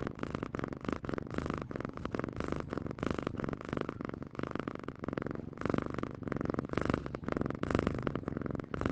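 Domestic cat purring continuously, a rapid pulsing rumble whose loudness rises and falls in uneven swells.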